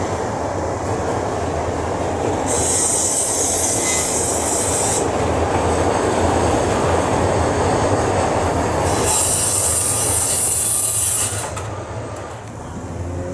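CTA 'L' train passing: a steady rail rumble with two spells of high-pitched wheel squeal, about 2.5 seconds in and again around 9 seconds. The rumble drops off sharply near the end.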